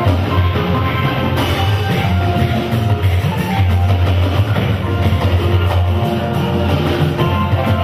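Loud band music with drum kit, bass and guitar playing steadily.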